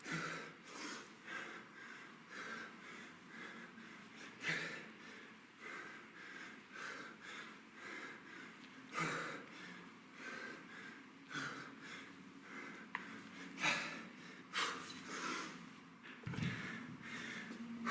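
A man breathing hard from exertion, in short, rhythmic puffs about twice a second, with a few louder breaths among them.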